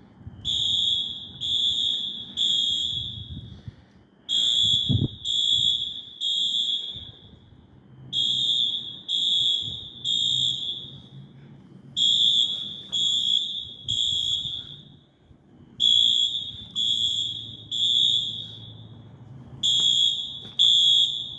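Station fire alarm horns sounding a high electronic beep in groups of three, the groups about four seconds apart: the temporal-three evacuation pattern, repeating on and on.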